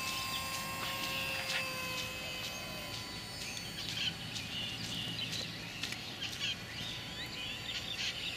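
Ultra-micro electric RC warbird (E-flite UMX F4U Corsair) with its three-blade prop, running with a steady high whine that fades away over the first few seconds as the plane climbs away. Birds chirp through the rest.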